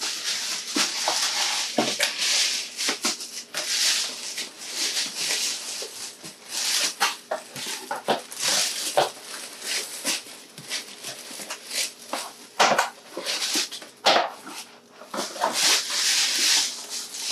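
Cardboard box and white packaging wrap being handled as a boxed helmet is pulled out: a continuous crinkling rustle broken by many small knocks and scrapes of cardboard.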